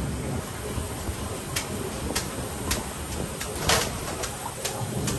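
Ramen kitchen work: a few sharp clinks and knocks of utensils and dishes, the loudest a little under four seconds in, over a steady kitchen hum.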